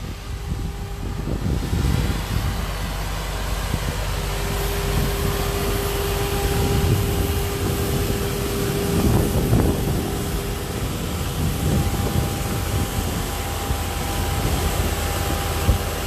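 An engine running steadily, with a low hum throughout. A steady whine comes in about four seconds in and fades before the end, and a higher steady tone joins about six seconds in.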